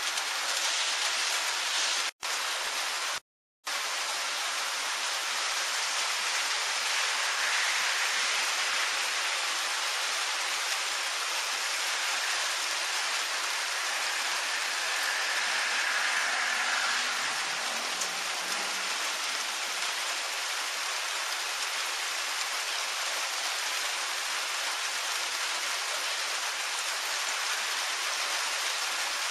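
Steady rain falling on trees, roofs and the ground, an even hiss. The sound cuts out completely twice for an instant, about two and three seconds in. A faint low rumble swells and fades a little past the middle.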